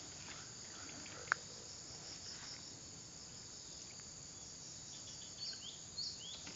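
Steady high-pitched buzzing of insects, with short chirps repeating over it; a single short click about a second in.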